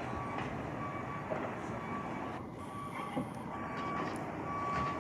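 Vehicle reversing alarm beeping at a steady pace, one tone repeated, over a steady background hum of traffic and machinery.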